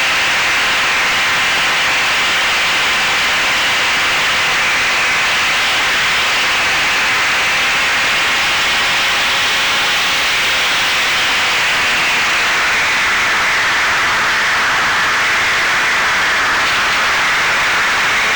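Electric motor and propeller of an FPV flying wing running steadily, heard from on board as a loud, even rush of air with faint motor tones that drift slightly in pitch.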